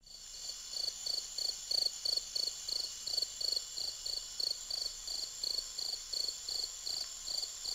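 Crickets chirping in an even rhythm, about three chirps a second.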